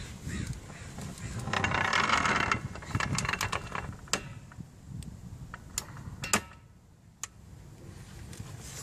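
Metal clamps and levers of a manual butt-fusion machine clicking and clanking while two heated HDPE pipe ends are pressed together to form the fusion bead. There is a scraping rattle about two seconds in, followed by scattered sharp clicks.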